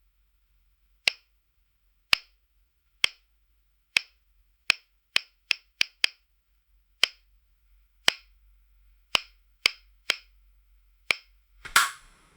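A series of sharp, dry clicks or taps, about fifteen, irregularly spaced and bunched into quick runs in the middle, over a very faint low hum. Near the end comes a louder, longer knock.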